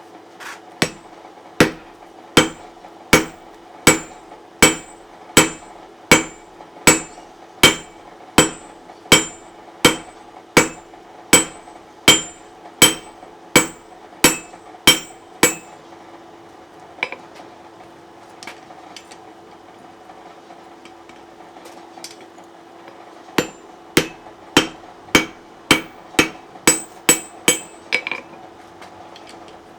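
Hand hammer striking steel on an anvil in a steady rhythm, a little over one blow a second, with a clear metallic ring, shaping a rivet-heading tool to fit. The hammering stops about halfway, with only a few light taps, then resumes in a shorter, quickening run near the end, over a steady low hum.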